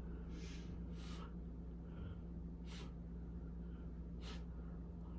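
A person eating a forkful of baked spaghetti squash, breathing in short, sharp breaths about four times while chewing, over a steady low hum.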